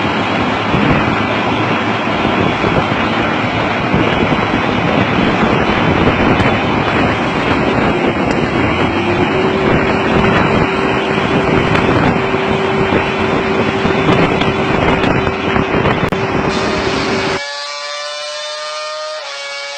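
Loud, steady running of heavy machinery, with a faint tone that steps up slightly about nine seconds in. About seventeen seconds in it cuts off abruptly to a quieter, steady whine with several pitches, which dips slightly near the end.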